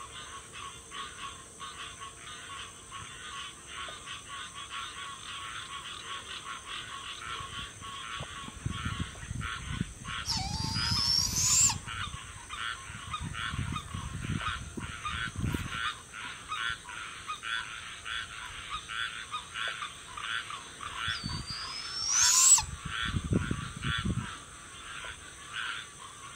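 Juvenile barred owl giving a rising, hissing begging screech twice, about ten seconds in and again about twenty-two seconds in. Under it runs a steady, fast-pulsing frog chorus and a high steady hum.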